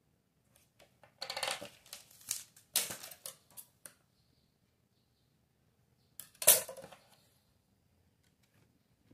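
Fabric and a tape measure being handled on a tabletop: rustling and scraping in short spells from about a second in to about four seconds in. A louder, brief scrape or clatter comes about six and a half seconds in.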